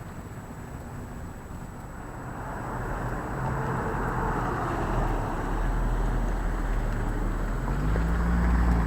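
Street traffic: a motor vehicle's engine running close by, with the noise growing louder from about three seconds in as it comes nearer.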